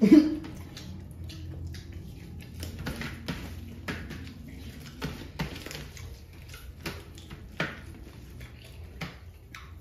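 Hand-eating sounds: fingers mixing curry-soaked rice on steel platters and chewing chicken, heard as a string of irregular short clicks and smacks. A brief vocal sound comes right at the start.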